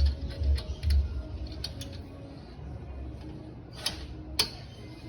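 Metal clicks and taps from a Chevrolet Vectra's brake caliper as its retaining spring clip is pushed into place by hand: a few dull knocks in the first second, then scattered sharp clicks, the sharpest near the end.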